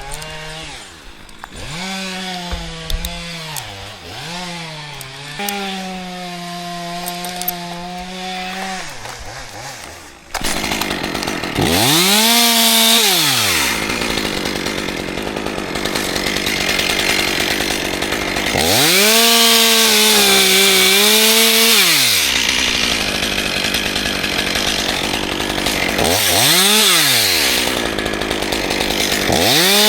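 Chainsaw running. About a third of the way in it goes to full throttle and cuts into wood, much louder, with the engine pitch swinging up and down several times as it works through the cut.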